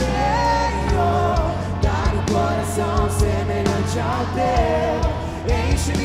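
A live band plays a Catholic worship song, with a singer's melody over a steady bass line and a regular drum beat.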